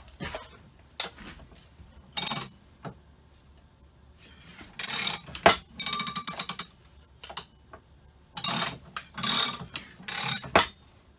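Sheet metal being handled and fed into a hand-operated slip roll: short bursts of metallic scraping and rattling, with single sharp clicks between them.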